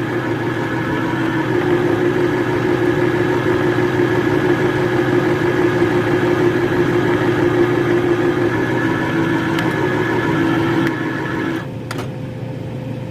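Electric safety can opener running on a can, a steady motor whir with a constant hum that drops off sharply about twelve seconds in.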